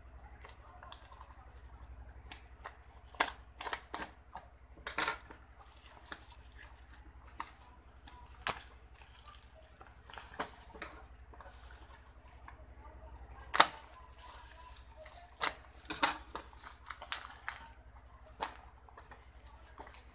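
Bubble-wrap and plastic parcel wrapping being slit with a utility knife, then torn and peeled off a cardboard box: irregular crinkling, crackles and sharp snaps, the loudest snap about two-thirds of the way through.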